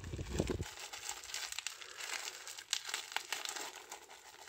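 Foil wrapper of a Yu-Gi-Oh booster pack crinkling and crackling in the hands as it is handled. There is a dull bump right at the start.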